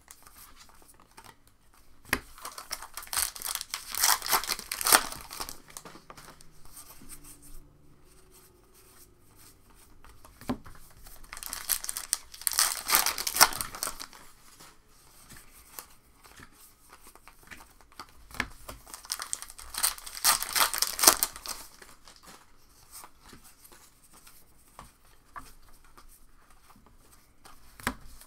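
Trading-card pack wrappers being torn open and crinkled, in three separate bursts several seconds apart, with quieter card handling in between.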